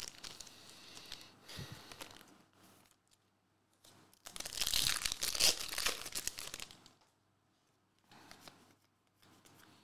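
A trading-card pack's wrapper crinkling in the hands, then torn open in a longer, louder rip from about four seconds in to about seven seconds.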